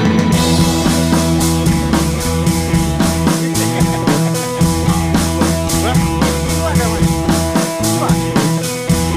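Background music: a rock-style backing track with drums, bass and guitar keeping a steady beat.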